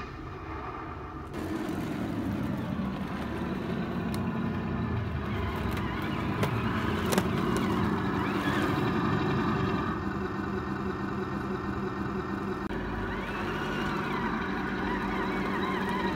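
Tamiya 1/16 Leopard 2A6 radio-controlled tank running, a steady engine-like drone with motor whine that steps up in level about a second in. A couple of sharp clicks come midway.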